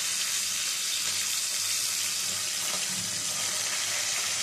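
Bele fish frying in hot mustard oil in a kadai: a steady, dense sizzle.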